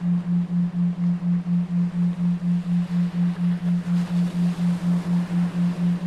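A low steady tone pulsing on and off about four times a second, a 3.9 Hz isochronic sleep tone, over a faint hiss of rain noise.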